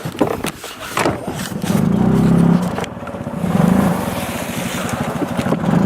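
An engine running, its pitch swelling and easing off several times about every second and a half, with a few sharp clicks in the first second.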